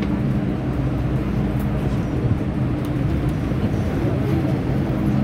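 MTR M-Train electric multiple unit heard from inside the carriage, pulling out of a station: a steady rumble of wheels on rail with the hum of the traction motors.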